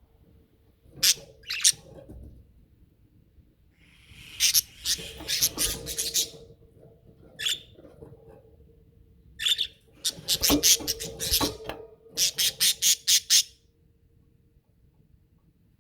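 Budgerigars squawking and chirping in short sharp calls, in bursts: a pair about a second in, a run of calls around the middle, then a quick series of about a dozen calls near the end.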